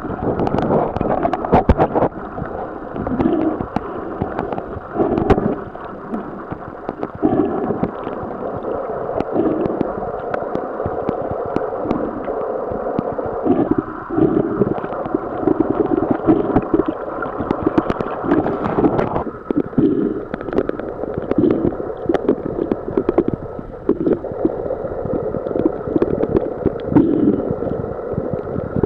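Muffled underwater noise picked up by a submerged camera: a steady gurgling and bubbling that swells and fades in irregular surges, with a few faint clicks.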